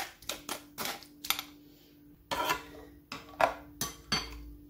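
A metal spoon scraping and tapping against a wire-mesh strainer over a glass bowl as tamarind pulp is pressed through, in a quick run of clicks, then a few separate clinks of the spoon against the glass bowl about halfway through and near the end.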